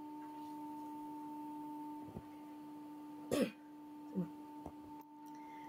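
A person's short throat-clearing sound about three and a half seconds in, with a fainter one soon after, over a steady low two-tone hum and a couple of faint clicks.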